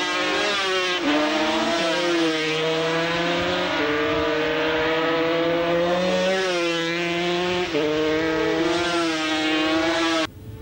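Several road-racing motorcycle engines running hard past the corner. Their notes overlap, rise as they accelerate and drop in sudden steps at gear changes. The sound breaks off briefly near the end.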